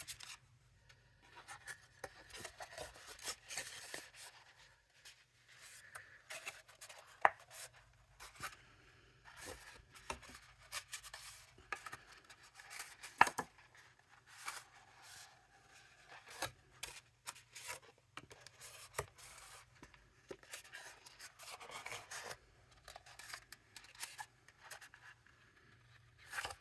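Cardstock being handled and folded by hand: scattered rustling, creasing and scraping of paper, with two sharp taps, one about 7 seconds in and a louder one about 13 seconds in.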